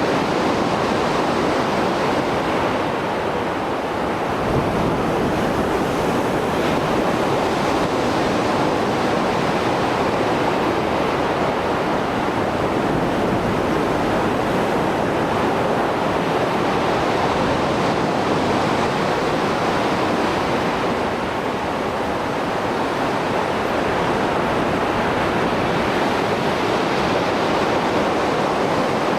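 Rough Mediterranean surf after a storm: waves breaking and washing in a continuous rush of noise, easing slightly about 3 seconds in and again around 21 seconds in.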